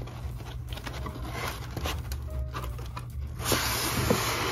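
Cardboard box and its styrofoam packing being handled as the box is opened: light rustling and scraping at first, then a louder, steady scraping rub from about three and a half seconds in.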